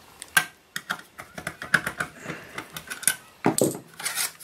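Hands handling and turning over a perforated aluminium avionics chassis: a series of irregular light clicks and knocks, a few sharper ones near the start and toward the end.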